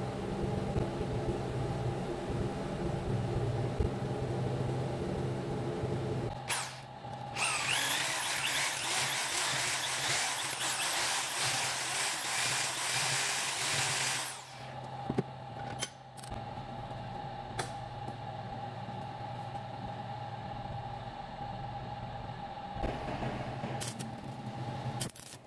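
Electric drill running for about seven seconds in the middle, boring through a steel nut held in a bench vise, with a high whine over a loud hiss. Before and after the drilling there is a steady mechanical hum with a few sharp clicks.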